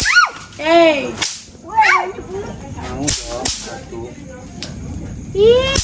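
Throw-down snap pops cracking sharply on the pavement, several times, amid short high-pitched children's squeals.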